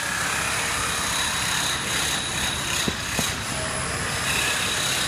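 Steady rumbling background noise with a faint high whine over it, and two faint clicks about three seconds in.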